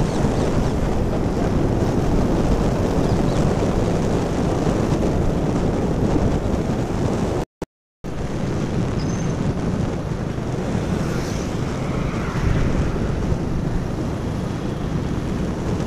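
Wind buffeting the microphone while riding a motorcycle, mixed with a steady rumble of engine and road noise. The sound cuts out for about half a second midway.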